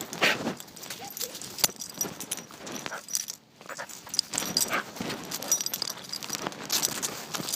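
Rubbing and handling noise from a phone strapped to a dog's harness as the dog moves about: irregular rustling with frequent small knocks and clicks, and a brief lull about three and a half seconds in.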